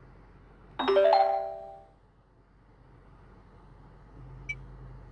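A single electronic chime from a phone app, struck about a second in and dying away over about a second. Near the end a faint low hum starts, with a small click.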